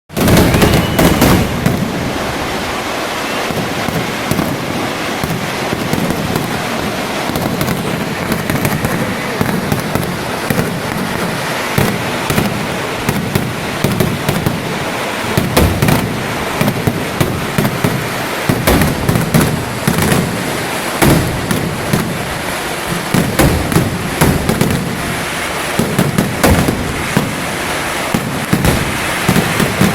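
Massed fireworks of the Thrissur Pooram vedikettu: a dense, unbroken barrage of rapid firecracker cracks and bangs over a continuous heavy rumble, with louder blasts standing out here and there.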